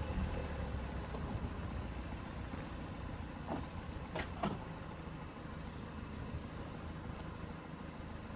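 Dodge Neon's four-cylinder engine running at low speed as the car drives along a rough trail, with a few sharp knocks a little past halfway as the car jolts over the ground.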